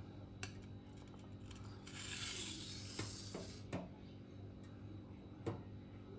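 A Fiskars chef knife's blade drawn in one gentle edge-leading stroke across a Cheefarcut vitrified diamond whetstone: a light scraping hiss lasting nearly two seconds, with a few faint clicks of steel on stone before and after. The light pass is taking off the burr.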